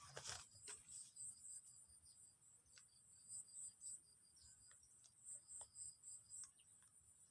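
Faint, high-pitched insect chirping in short repeated pulses, with a few soft clicks.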